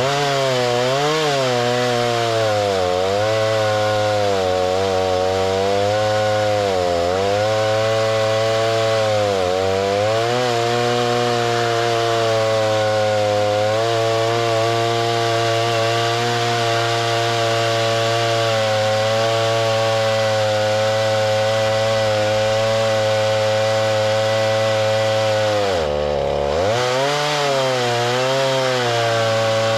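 Chainsaw at full throttle, ripping a log lengthwise in a chainsaw mill. Its engine pitch sags briefly every couple of seconds early on and once more near the end as the chain loads up in the cut, then recovers to a steady high rev.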